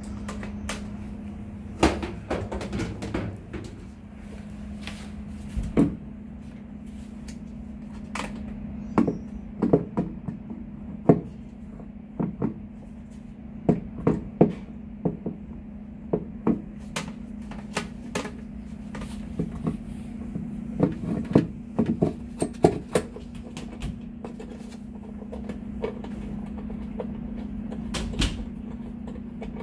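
Irregular clicks and knocks of hand tools, a socket on an extension, against the plastic agitator and metal hardware of a top-load washer, some in quick clusters, over a steady low hum.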